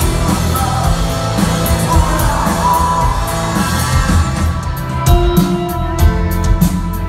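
Live rock band playing loud, with a voice singing over guitars, bass and drums; sharp, regular hits from the drum kit come in about halfway through.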